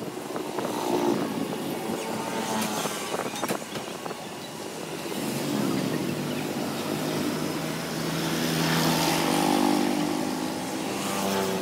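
Motor vehicles, most likely motorcycles, passing on the street: a brief engine pass in the first few seconds, then another engine that grows louder through the second half and fades away near the end.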